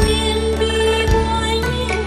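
Instrumental interlude of a Chinese Buddhist devotional song to Guanyin: a sustained melody over a low drone, with a soft drum beat about once a second.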